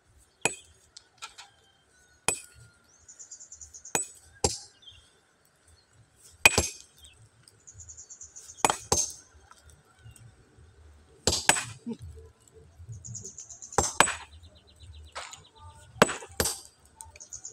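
Steel hammer striking a large stone boulder to split it: sharp, ringing clinks of metal on rock, about fourteen irregular blows, often two in quick succession.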